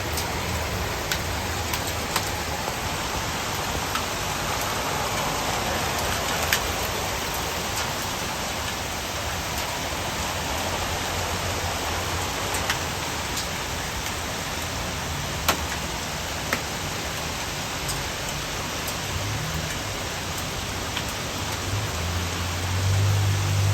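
Heavy rain with hail: a steady hiss of downpour, with scattered sharp hailstone strikes every second or two.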